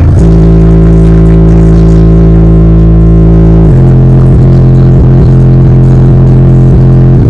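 Bass-heavy music played very loudly through two Sundown Audio Zv3 subwoofers on a Popcorn Sounds 4k bass amplifier, heard inside the vehicle's cabin. A low bass note is held for about three and a half seconds, then changes to a different pulsing note.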